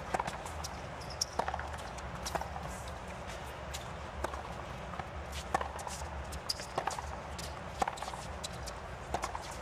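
Tennis ball and players' shoes on a hard court: sharp knocks about once a second over a steady low stadium background.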